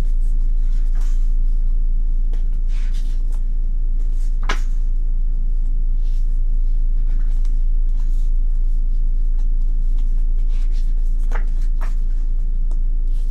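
Pages of a glossy photobook being turned and handled, with scattered paper rustles and snaps, the sharpest about four and a half seconds in and a quick pair near the end. A steady low hum runs underneath throughout.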